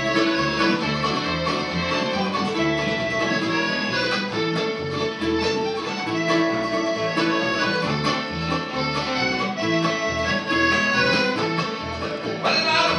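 A live folk band plays an instrumental passage with no singing: button accordion, fiddle, mandolin, guitars and bass, with the accordion most prominent and carrying the tune over a walking bass line.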